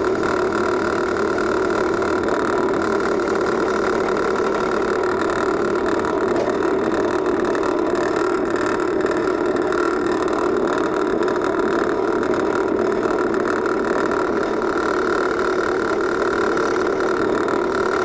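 Benchtop drill press motor running steadily, with an even, unchanging hum.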